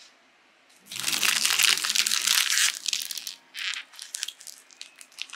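Foil snack bag of wafer rolls crinkling loudly as it is squeezed and handled, starting about a second in, then a few lighter crinkles.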